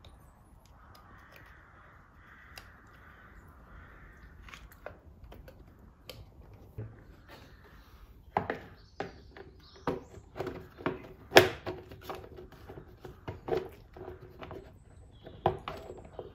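Plastic engine cover being pushed and knocked into place over the coil packs of a BMW M52 straight-six: a run of sharp plastic knocks and clacks from about eight seconds in, the loudest a little past the middle. Before that come a few light clicks as the coil-pack connectors are clipped on.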